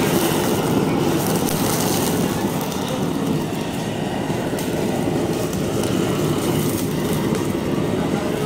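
Gas blowtorch fed from an LPG cylinder burning steadily as its flame singes plucked broiler chickens.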